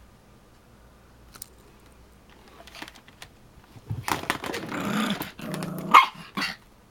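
Dog growling for about two seconds, then barking sharply twice near the end: a pet dog challenging a vacuum cleaner that is not switched on.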